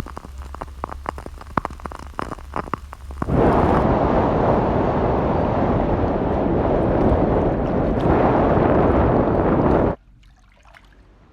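Rain sound effect of rapid, irregular pattering taps. About three seconds in it gives way to a loud, steady rush of crashing waves, which cuts off abruptly near the end.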